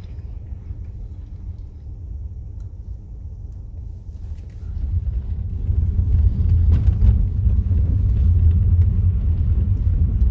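Car driving: a steady low rumble that grows louder about five seconds in.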